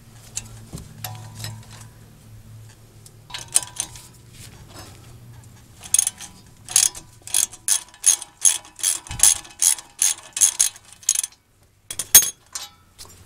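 Socket ratchet clicking as its handle is swung back and forth to back out an 18 mm caliper bracket bolt: a few scattered clicks, then a steady run of sharp clicks about two or three a second for five seconds, and two more near the end.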